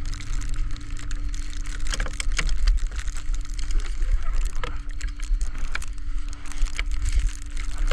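Ratchet tie-down strap being cranked tight on a flatbed tow truck, its ratchet giving irregular sharp clicks. Underneath runs a steady low rumble with a thin hum.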